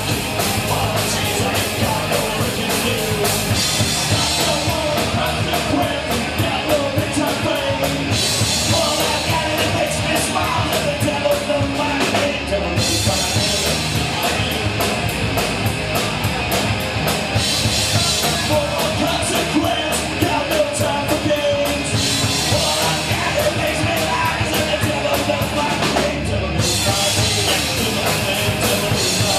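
Rock song with a singing voice over a driving drum kit, the cymbals struck steadily and densely throughout.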